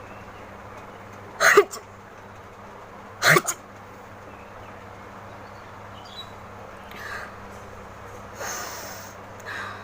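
A woman sneezing twice, two loud sudden bursts about a second and a half apart, each with a voiced falling cry. A few much softer breathy sounds follow near the end.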